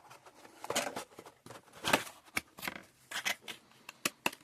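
Irregular rustling and clicking of product packaging and papers being handled, with the loudest rustle about two seconds in.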